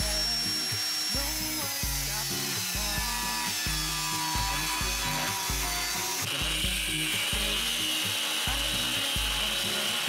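Angle grinder with a thin cut-off disc cutting through a steel bar held in a vise: a harsh, steady whine, its tone changing about six seconds in. Background music with a steady bass beat runs underneath.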